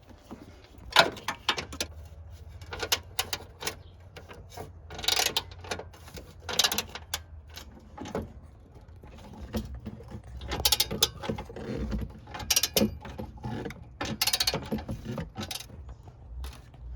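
Socket ratchet wrench clicking in several short spells of rapid clicks, working a bolt.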